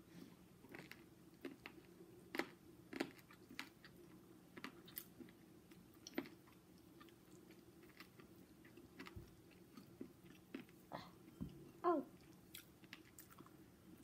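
Faint close-up chewing and lip smacking as two people eat chicken adobo by hand, a scatter of soft wet clicks, with a brief "mm" about twelve seconds in.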